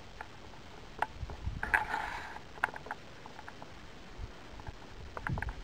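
Faint scattered clicks and low bumps of handling noise on a handheld camera as it pans, with a short rustle about two seconds in.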